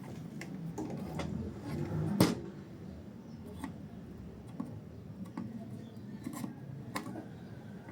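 Light scattered clicks and taps of small hand tools on a circuit board as a surface-mount resistor is worked off a donor board, with one sharper click about two seconds in.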